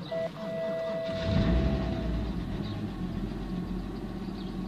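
BMW E60 525i's 2.5-litre Valvetronic six-cylinder cold-started at −26 °C: it catches about a second in, flares briefly and settles into a steady fast idle, with a thin whine over the first two seconds. A very fast start for the cold.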